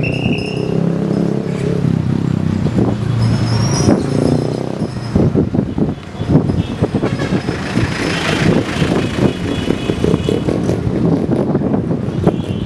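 Vehicle engine and road noise heard from a moving vehicle in traffic. There is a steady low hum for the first few seconds, and from about five seconds in, rough gusty buffeting of wind on the microphone takes over.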